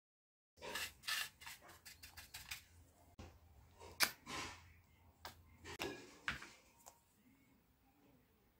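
Clicks, taps and rubbing from handling small plastic dropper bottles of acrylic paint over a stainless steel palette tray as paint is squeezed out for mixing. The sharpest click comes about four seconds in.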